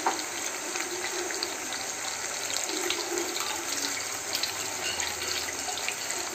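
Marinated, rice-flour-coated chicken pieces deep-frying in hot oil in a kadai: steady sizzling with scattered crackles.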